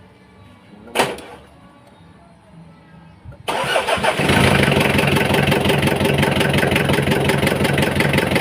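Mitsubishi Kuda's 4D56 four-cylinder diesel engine starting suddenly about three and a half seconds in, then running steadily with an even rhythmic beat. It is an engine the owner calls in bad shape. A single sharp knock sounds about a second in.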